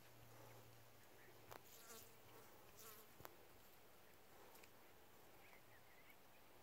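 Near silence: faint outdoor air with a low steady hum and a few soft clicks.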